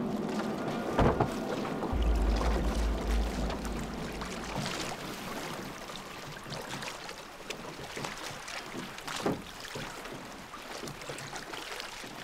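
Water splashing and lapping around a wooden boat, with scattered wooden knocks. A deep low rumble starts about two seconds in and lasts a couple of seconds.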